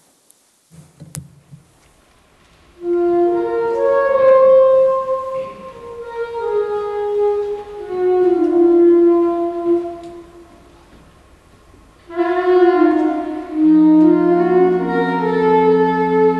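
Saxophone playing a slow melody of long held notes, with a short break before the next phrase. A low sustained note joins underneath near the end.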